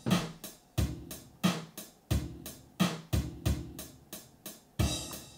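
Sampled drum machine looping a simple sixteen-step beat of kick and snare drum hits, about three a second. A crash cymbal rings out near the end as the loop starts over.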